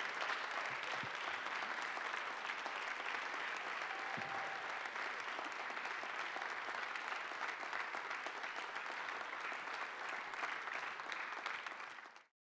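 Audience applauding steadily, cutting off suddenly near the end.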